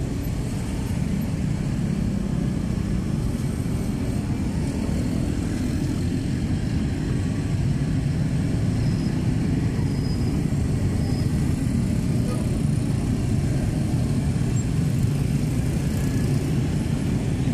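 Steady low rumble of street traffic noise.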